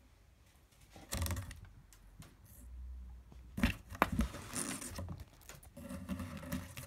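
A cat scrabbling and pawing inside a cardboard box: scratchy rustling and scraping of cardboard in several short bouts, with a couple of sharp taps about four seconds in.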